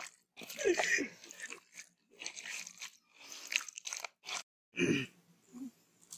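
Bare hands squishing and kneading raw chicken pieces in a wet yogurt-and-spice tikka marinade in a steel bowl, in short wet squelching bursts. A brief laugh or vocal sound comes in about a second in and again near the end.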